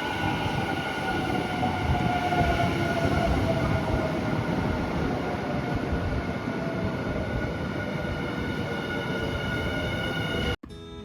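Electric train running with a steady rumble and a motor whine, one tone of which glides slowly down in pitch; the sound cuts off suddenly near the end.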